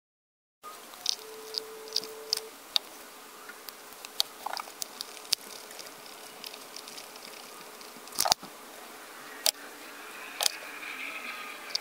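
Small clicks and taps of an epoxy bottle, a plastic mixing cup and steel handle scales being handled on a workbench, over a faint steady hum. A few sharper knocks come in the second half, the loudest about eight seconds in.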